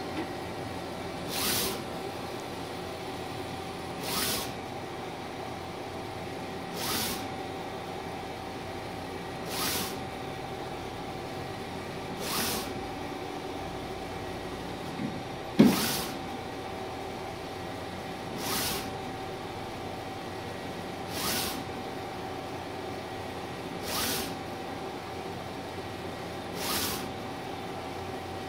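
Mimaki 3042 HG UV-LED flatbed printer printing: a steady machine hum with a held tone, and a short hissing whoosh about every 2.7 seconds as the print-head carriage makes its passes. A single sharp knock comes about halfway through.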